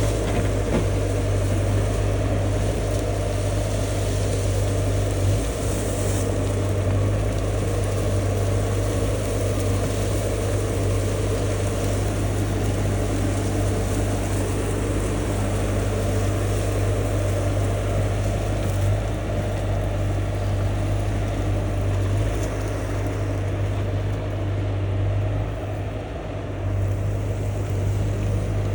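Diesel engine of a 2019 Bobcat T650 track loader running steadily under throttle with a deep, even hum, easing off briefly near the end.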